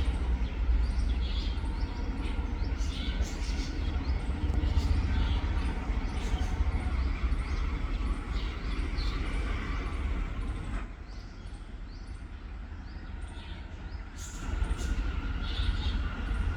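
A bird calling with short, high chirps repeated over and over, over a steady low rumble that eases for a few seconds past the middle.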